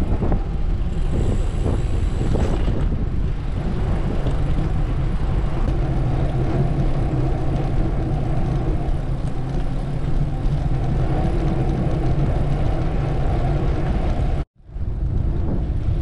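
Steady rush of wind on a moving bicycle's camera microphone, mixed with tyre and road noise. It cuts out for a moment near the end, then carries on.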